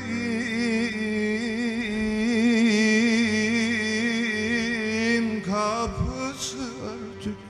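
A man singing a long, wavering held note in Turkish uzun hava style, with a fast vocal shake, over a steady instrumental drone. About five and a half seconds in, the voice slides down and breaks off.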